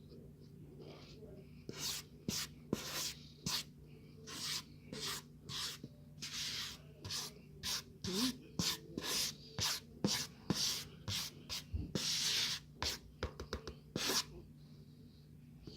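Powdered tapioca starch being packed and pressed down by hand: a run of short rubbing, scraping strokes, about two a second, that starts a couple of seconds in and stops shortly before the end.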